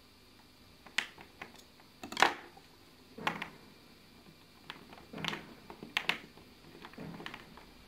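Scattered light knocks and clicks of small plasticine pieces and a plastic knife being handled on a wooden tabletop, with the loudest knock a little over two seconds in.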